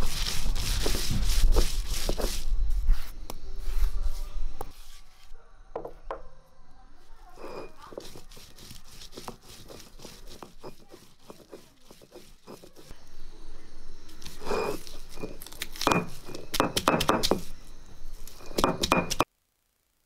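Stone roller being rolled and pushed back and forth over a flat stone grinding slab (ammikallu), crushing grated coconut, shallots and spices into a coarse paste. Repeated gritty scraping strokes with knocks of stone on stone, louder at the start and again in the latter part, cutting off suddenly near the end.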